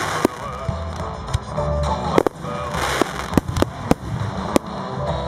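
Aerial fireworks bursting in a quick, irregular string of sharp bangs, over music playing with the display.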